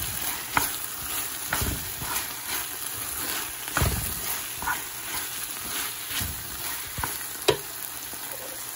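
Chicken pieces, capsicum and onion stir-fried in a thick sauce in a hot pan: a steady sizzle under the scrape of a stirring utensil. The utensil knocks against the pan every second or two, with the sharpest clack about seven and a half seconds in.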